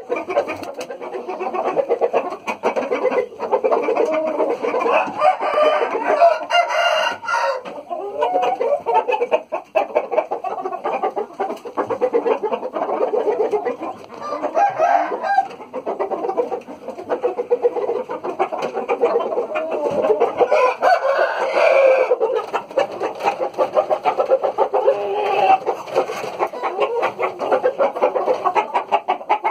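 Many chickens clucking and young roosters crowing, their calls overlapping in a continuous loud din, with a few longer crows standing out.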